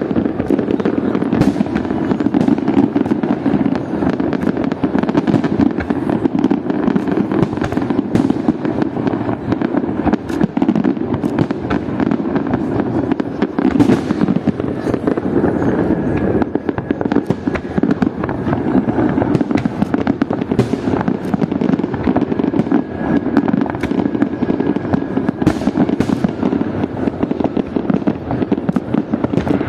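Fireworks display: a dense, unbroken barrage of bursting shells and crackle, with many sharper single bangs standing out throughout.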